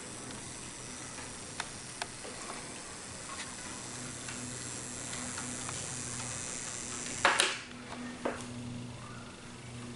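Standing sounds from a Hornby A4 model steam locomotive's DCC sound decoder and speaker: a steady low hum with scattered faint clicks, and a short louder hissing burst about seven seconds in.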